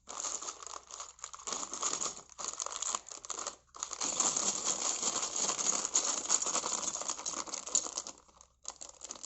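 A plastic Lego parts bag being crinkled and torn open by hand, in bouts of crackling with two short pauses.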